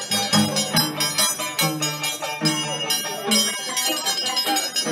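Live Peruvian folk band music with a steady beat and bright, ringing high notes.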